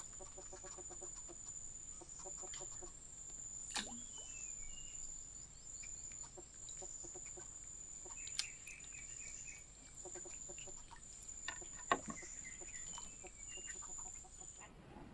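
Faint outdoor animal ambience: short runs of repeated low pitched calls every few seconds, a few high chirping series, and a steady high-pitched insect drone that cuts off near the end.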